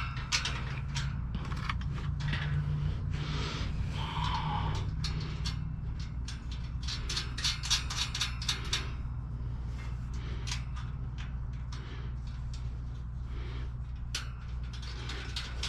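Small electric power-tool motor running with a steady low hum, with frequent irregular clicks and scrapes of metal being worked.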